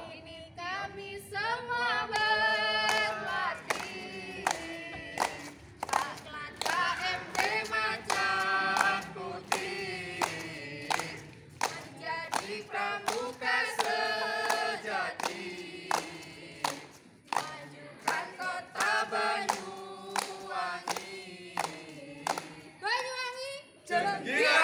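Small mixed group of male and female voices singing and chanting a yel-yel cheer together in unison, with sharp hand claps marking the rhythm throughout.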